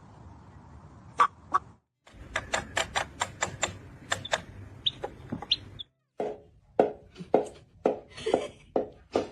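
A run of short, sharp animal calls in quick succession, several a second, broken by two brief silences.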